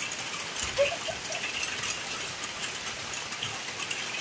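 Steady rain falling on wet ground and puddles, a fine hiss of many small drop impacts. A short squeaky call comes through about a second in.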